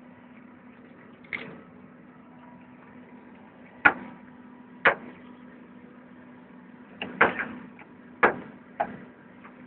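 Revolver padlock being handled on its fitting: a series of about seven sharp clicks and clunks at uneven intervals, the loudest a little under 4 s in, with a steady low hum underneath.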